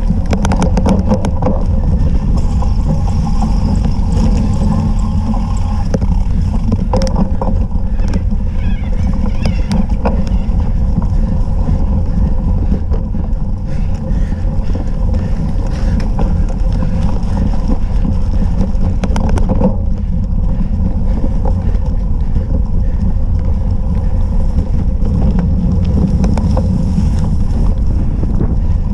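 Wind and riding vibration on a cyclocross bike's onboard camera microphone as it rides over rough grass: a loud, steady low rumble with scattered knocks and rattles from the bike.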